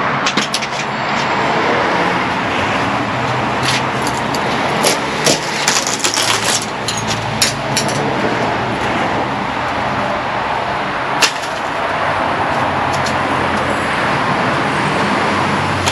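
Sharp plastic clicks and cracks of uPVC trims and glazing beads being prised off a porch door frame, coming in a cluster about a third of the way through and once more later, over a steady rushing noise.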